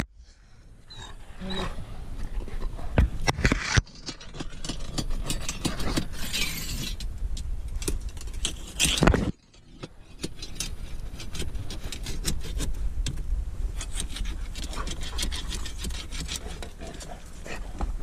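A rod scraping and knocking against rock as it is poked into a crevice, many irregular clicks and scrapes.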